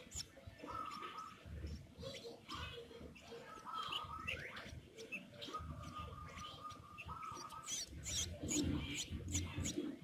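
Two-week-old long-tailed shrike nestling giving rapid, high-pitched begging chirps, which come thickest near the end.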